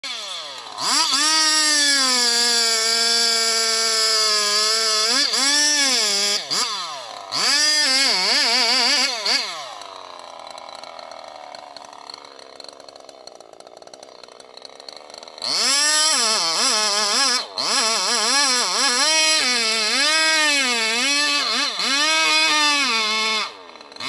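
Two-stroke chainsaw running at high revs and cutting into a large tree trunk, its pitch repeatedly sagging and recovering under load. It drops to a much quieter running sound for about five seconds midway, then goes back to full revs.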